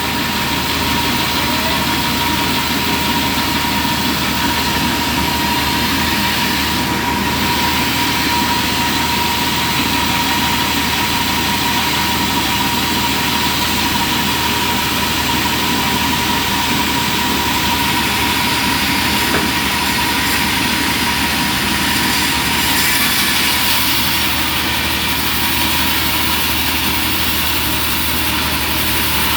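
Homemade bandsaw sawmill running steadily, with a constant high-pitched whine over the machine noise.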